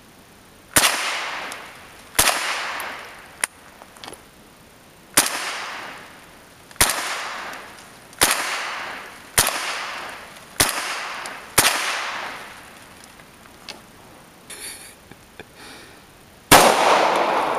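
Gunshots fired one at a time at a target, nine in all. The first eight come about one to one and a half seconds apart with a pause after the second, and the last follows a gap of about five seconds. Each sharp crack rings off over about a second.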